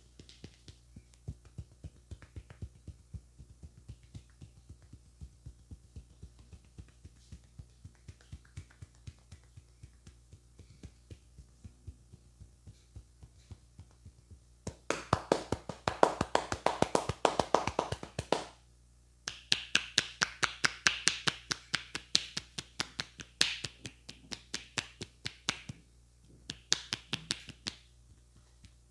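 Hands striking a head and neck in a traditional Indian head massage: light, even taps about three a second, then, about halfway through, long runs of loud, fast chopping and slapping strokes with a short break between them.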